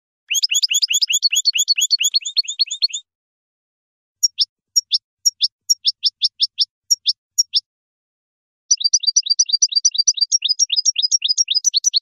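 European goldfinch singing in three bouts of quick, high twittering notes with short pauses between. The first and last bouts are rapid; the middle one is slower, about three notes a second.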